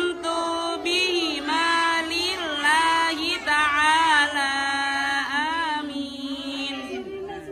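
Young children's voices chanting an Islamic prayer to a sung melody, with long held notes that slide up and down in pitch.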